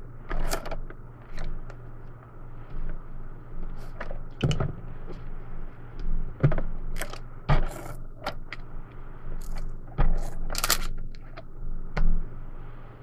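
Hands handling scrapbooking supplies on a cutting mat: paper sliding and rustling, and plastic craft items such as a storage box and an adhesive tape runner being picked up and set down, giving scattered clicks, taps and scrapes.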